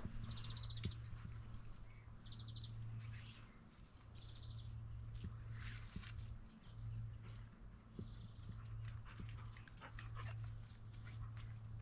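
Footsteps and a dog moving about on grass under a steady low hum. Three short, high, rattling trills come in the first five seconds, and a fainter one follows a few seconds later.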